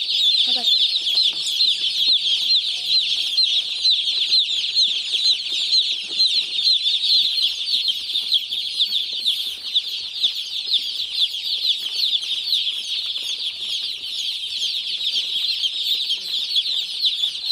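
A large flock of newly delivered Cobb 430 broiler chicks peeping nonstop, many short, high, falling peeps overlapping into a steady shrill chorus.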